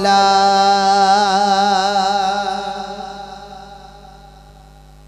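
A man's voice chanting the Arabic opening formula of a sermon, holding one long wavering note for about three seconds that then fades out gradually. A steady hum sounds underneath.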